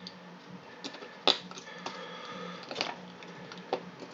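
Sharp hobby knife cutting and chipping at the edge of a hole in a plastic scale-model seat: a few sharp, irregular clicks and scrapes as the blade bites and flakes off small pieces of plastic.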